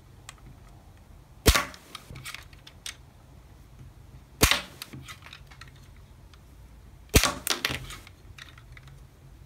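Plastic toy revolver firing rubber bullets three times, about three seconds apart. Each shot is a sharp plastic snap as the hammer, pulled all the way back by thumb, is released to fire with more force than a trigger pull; each snap is followed by a few lighter clicks.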